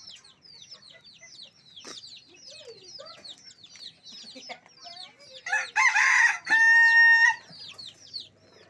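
A rooster crows once about five and a half seconds in, ending on a long held note, and this is the loudest sound. Small birds keep up a constant high chirping throughout.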